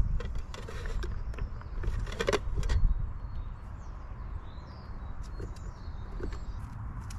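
Garden sound at a wildlife feeder: a steady low rumble under a few short rustling, clattering noises in the first three seconds, the loudest just after two seconds in, and faint high bird chirps after that.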